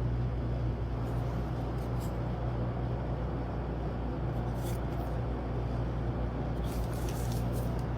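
Steady low hum and rumble with a few faint clicks.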